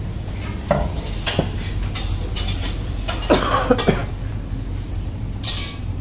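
Busy street ambience: a steady low hum with a few sharp clinks, a brief voice about three seconds in, and a short hiss near the end.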